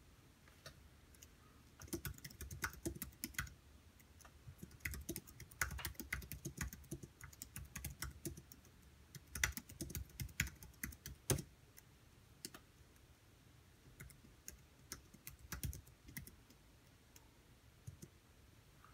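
Typing on a slim white low-profile computer keyboard: quick runs of light key clicks broken by short pauses, with a couple of harder single keystrokes around the middle. The typing stops a couple of seconds before the end.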